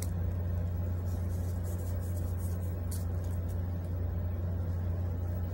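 A steady low hum runs under faint, scattered soft ticks and rustles of Pokémon trading cards being handled and shuffled in the hands.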